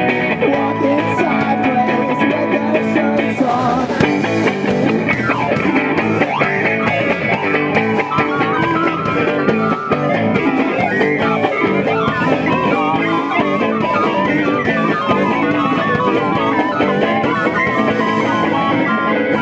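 A live rock band playing loud, steady music, with guitar and keyboard. A wavering melody line comes in about eight seconds in.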